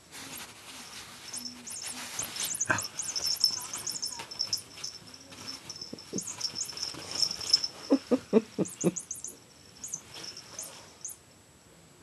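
A chihuahua puppy tussles with a toy mouse on a duvet: the bedding rustles under many quick, high chirping squeaks. About eight seconds in comes a quick run of five short, low sounds, after which it goes quieter.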